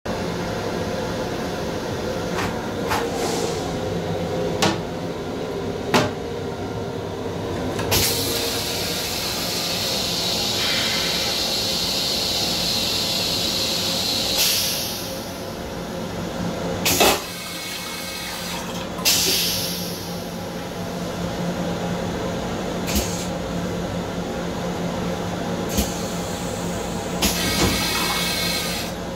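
Long Island Rail Road M7 railcar toilet flushing: a hissing rush of water lasting about six seconds, starting about eight seconds in. Underneath it runs the steady hum and rumble of the train, with several sharp clicks and knocks.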